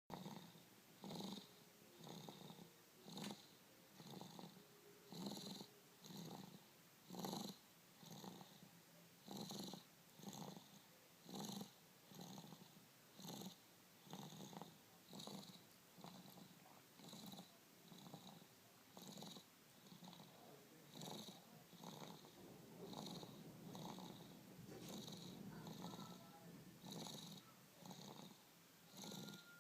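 A sleeping chihuahua snoring faintly, with short breath sounds about once a second.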